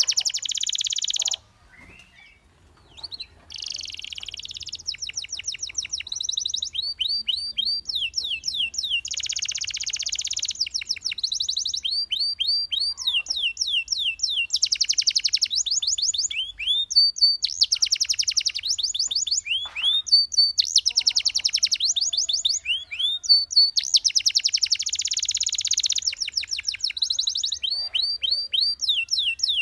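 Canary singing: phrase after phrase of fast trills and rolls built from rapidly repeated sweeping notes, with a short pause about two seconds in.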